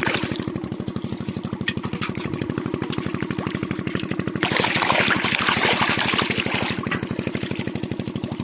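A small engine running steadily with a fast, even pulse. From about halfway through, a louder hissing rush rises over it for roughly two and a half seconds, then dies away.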